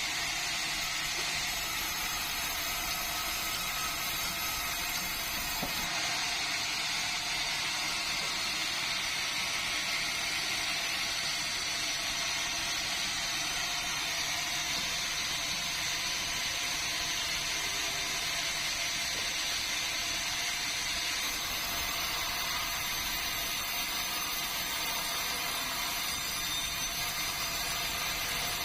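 Sawmill machinery running steadily while sawing meranti timber, a continuous even mechanical noise with a thin high whine.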